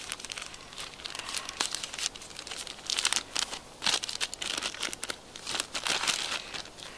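Crinkling and rustling as things are handled and rummaged about in a bag: an irregular run of soft crackles and scrapes.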